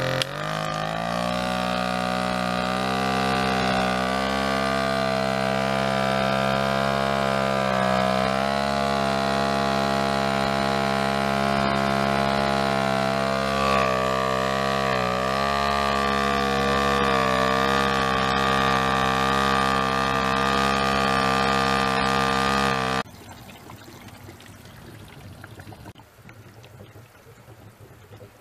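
Small engine running on hydrogen gas, driving a 12-volt electric motor as a generator: its pitch climbs in the first second, then it runs steadily with slight wavers in speed. The sound cuts off suddenly about 23 seconds in, leaving only faint noise.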